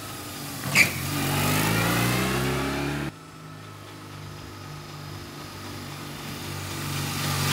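BMW R1150GS Adventure sidecar rig's boxer-twin engine accelerating, rising in pitch, with a short sharp burst about a second in. The sound drops off abruptly about three seconds in, then the engine runs on more quietly and rises again near the end.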